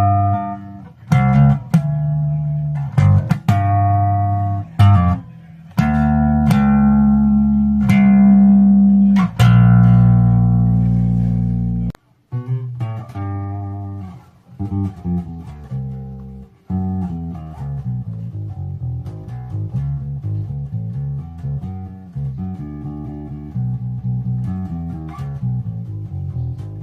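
Electric bass guitar, a VESTER Precision Bass copy with a plywood body and old strings, played for a sound demonstration: single plucked notes left to ring, then a quicker run of notes from about halfway through.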